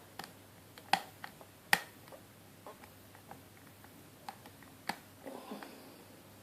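Pin-tumbler padlock with security pins being picked: small, irregular metallic clicks of the pick lifting and setting pins, the two loudest about one and two seconds in, with a brief soft scrape of the pick in the keyway near the end.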